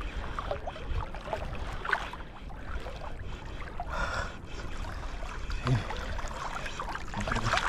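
Sea water sloshing and lapping close to the microphone, with a low rumble underneath.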